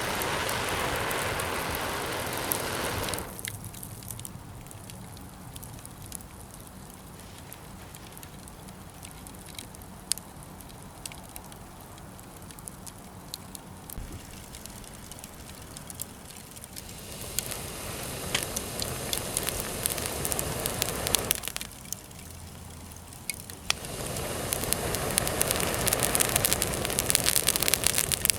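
Wood fire crackling with scattered sharp pops, broken by a louder, steady rushing hiss in three stretches of a few seconds each: at the start, again about two-thirds of the way through, and near the end.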